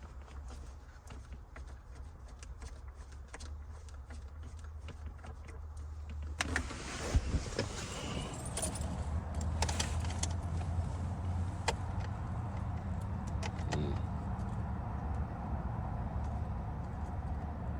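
Keys jangling and clicking as a key stuck in the ignition lock is worked back and forth: the lock won't release because the car has no electrical power. Sharp clicks and rattles come thickest from about six seconds in, over a low steady rumble.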